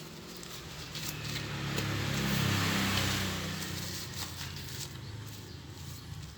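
A motor vehicle passing by: its engine and tyre noise grows louder, peaks about halfway through, then fades away.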